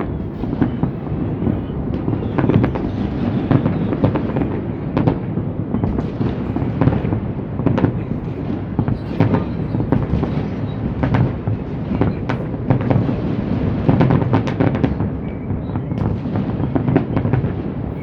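A dense, continuous fireworks barrage: many shells bursting at once in overlapping low booms, with sharp cracks every fraction of a second.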